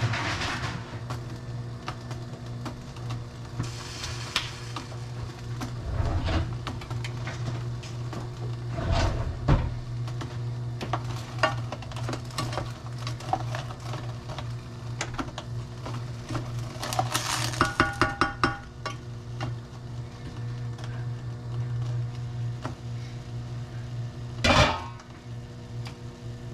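Cookware clatter: a plastic spoon stirring and clinking in a saucepan and pans being handled on a glass-top electric stove, over a steady low hum. Near the end there is one loud clank as a skillet is set down on the stove.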